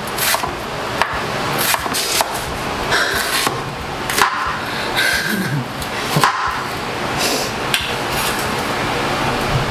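Kitchen knife chopping red onion on a bamboo cutting board: irregular knocks of the blade against the wood, a few seconds apart, over a steady background hiss.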